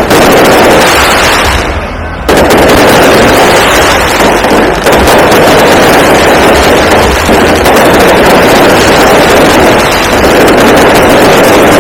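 Aerial fireworks going off in a rapid, continuous barrage of bursts and crackling, loud enough to overload the recording, with a brief lull about two seconds in.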